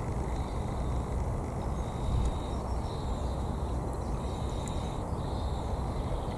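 Wind buffeting the microphone in a steady low rumble, with faint, thin, high-pitched calls coming and going in the background.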